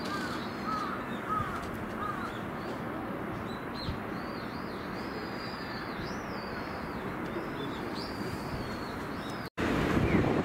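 Birds chirping and twittering over a steady outdoor background hiss: short chirps early on, then higher wavering calls. About a second before the end the sound cuts and louder rushing wind noise takes over.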